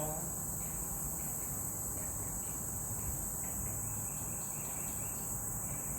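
Steady, high-pitched chorus of insects droning without a break in swampy woods, over a low background rumble.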